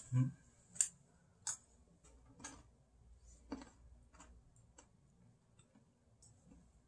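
Faint, irregular clicks and light taps, roughly one a second, as small objects are handled.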